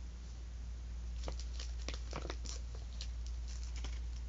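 Small clicks and rustles of a cardboard medal case and taped-on medals being handled, over a steady low hum.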